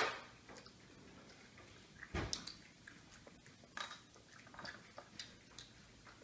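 Small clicks and taps of chewy candies and fingertips against a ceramic ramekin on a hard table, with a dull knock about two seconds in and a sharper click near four seconds.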